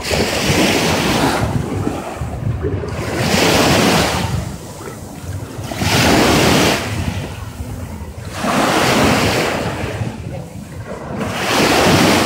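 Small waves breaking and washing up the sand at the shoreline, swelling and fading every two to three seconds, with wind rumbling on the microphone.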